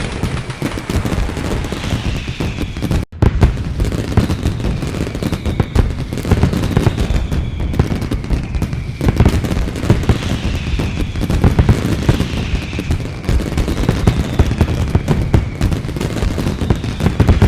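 A fireworks barrage: dense, rapid bangs and crackling, with a falling whistle every two to three seconds. The sound cuts out briefly about three seconds in.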